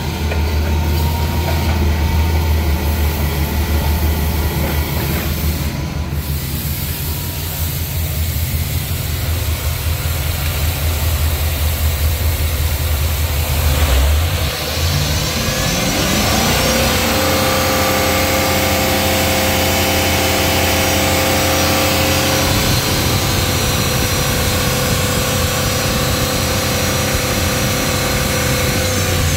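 2009 GM/Chevy 6.0L gasoline V8 running in the truck, idling steadily with a low hum. About halfway through the engine speed rises over a couple of seconds and then holds at a higher, steady pitch.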